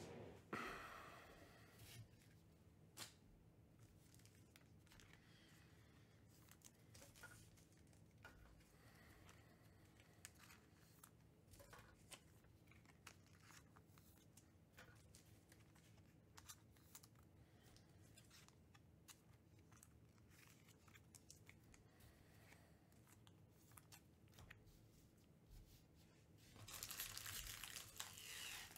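Mostly near silence with faint scattered clicks and rustles. Foil trading card pack wrappers crinkle briefly about a second in, and again for the last two seconds as packs are picked up off a stack.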